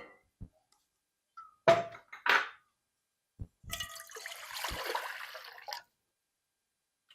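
Two clanks of kitchenware about two seconds in, then water poured into a vessel for about two seconds, ready to be boiled.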